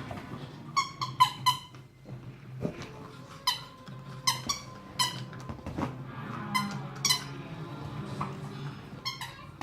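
Squeaky toy being squeezed in quick, short squeaks, about a dozen in clusters of two or three, as a pet plays with it.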